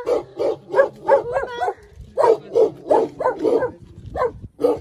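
Dog barking over and over in quick runs of short, sharp barks, about three a second, with a brief pause about two seconds in and two more barks near the end.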